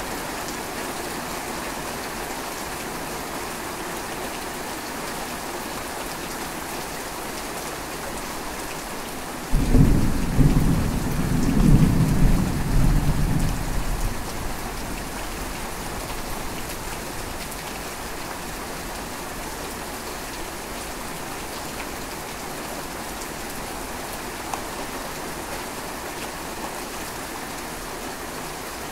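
Steady rain falling throughout, with a sudden clap of thunder about a third of the way in that rumbles for several seconds before dying away.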